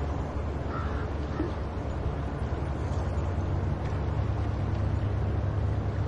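Seaside ambience: a steady low rumble of wind and surf, with a brief gull call about a second in.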